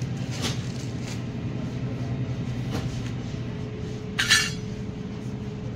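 Steady low hum of supermarket chest freezers and store machinery, with a few faint clicks. About four seconds in comes one sharp, ringing clink.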